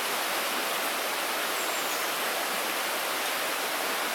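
Steady flowing water of a small stream, an even hiss with no changes.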